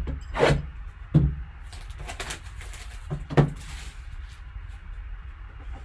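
Hands handling and opening a trading card box and its packaging: a handful of short scrapes and rustles, some with a soft knock, about one a second.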